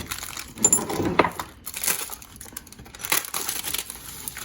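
Packaging of a set of threaded clamping studs being torn open and crinkled, with a few sharp handling knocks.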